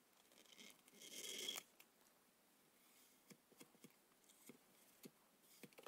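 A plastic squeegee scraping over an adhesive sticker to press it flat on a plastic case: one short scrape about a second in, lasting under a second. Otherwise near silence with a few faint taps.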